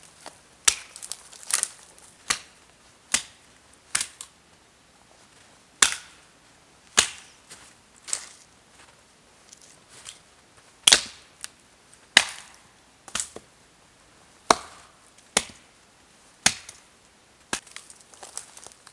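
Dead, dry lower branches of a conifer being snapped off by hand: a series of sharp cracks, roughly one a second at uneven spacing.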